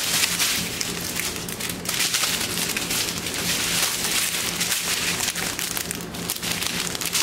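Clear plastic packaging and small bags of diamond painting drills crinkling as they are handled and sorted: a dense, continuous rustle of many small crackles.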